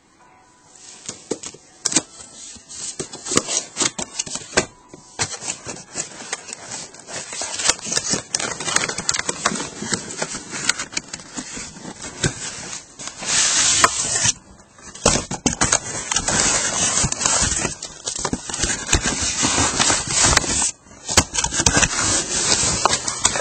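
Close handling noise of unpacking computer accessories: packing material rustling and crinkling, cardboard box scraping, and cables being handled. It comes as an irregular stream of crackles and knocks, with brief lulls about fourteen and twenty-one seconds in.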